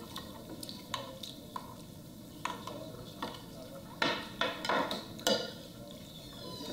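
Clinks and knocks of a small bowl or cup being handled and rinsed in a shampoo sink, with a quick cluster of sharper knocks about four to five seconds in.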